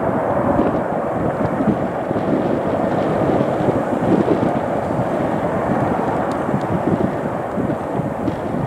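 Boeing 727's three Pratt & Whitney JT8D turbofans at climb power as the airliner climbs away after takeoff: a steady rush of jet noise.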